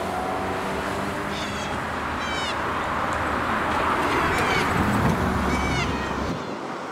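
Cars driving over the level crossing, their tyre and engine noise building to a peak about five seconds in and then dropping away. Over it, a bird calls several times in short bursts of quick falling notes.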